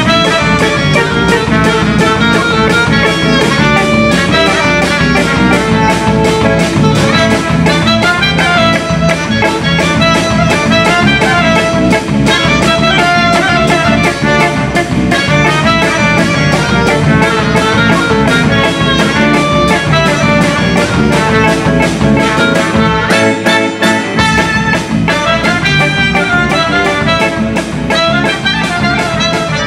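Klezmer band music, a clarinet melody over a steady beat.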